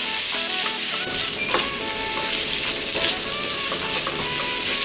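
Tomatoes and green onions with chopped chilies, garlic and ginger sizzling in hot oil in a nonstick wok, stirred and turned with a wooden spatula.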